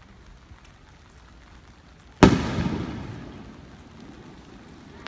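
A single aerial firework shell bursting about two seconds in: one sharp bang followed by a rumbling echo that fades over a second or so.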